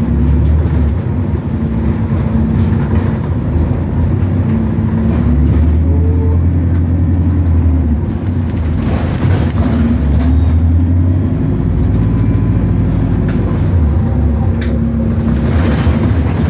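Bus engine running with a steady low drone while the bus is driven along, its pitch dipping and picking up again several times as the bus changes speed.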